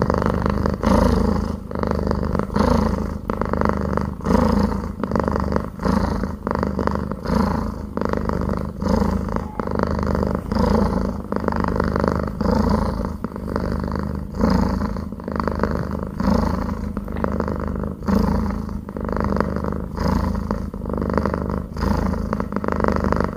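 Domestic cat purring as it settles to sleep, a continuous low rumble that swells and fades about once a second with its breathing.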